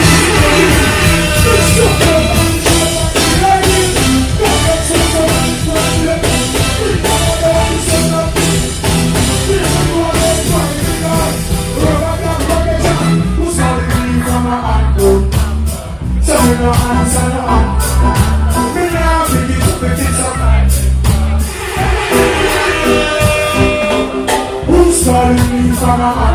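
Loud live reggae/dancehall music over a PA: a heavy bass line and drum beat with a vocal over it, recorded on a phone. The bass drops out briefly about halfway through.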